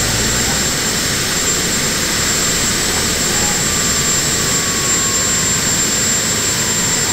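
Multi-engine modified pulling tractor's gas turbine engines idling: a steady high whine over a loud, even rushing noise.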